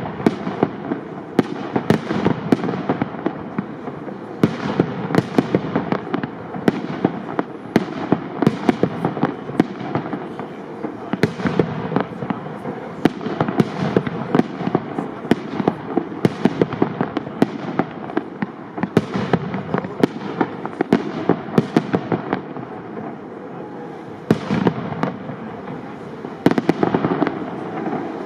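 Aerial firework shells of up to 75 mm calibre bursting in a dense barrage, several sharp bangs a second over continuous crackling, thinning briefly a little before the end and then picking up again.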